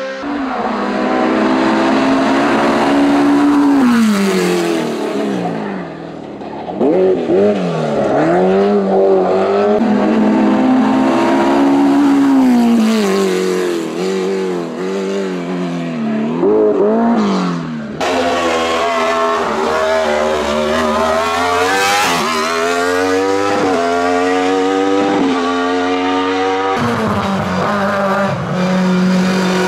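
Hillclimb race cars accelerating flat out up a mountain road, one after another. Each engine's pitch climbs steeply and drops sharply again and again as it shifts up and lifts off for corners, with a few sharp pops on the overrun.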